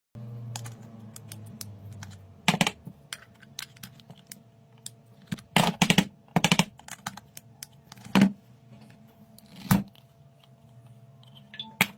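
Irregular clicks and taps of small hard parts being handled, with several louder clattering knocks, over a faint steady hum.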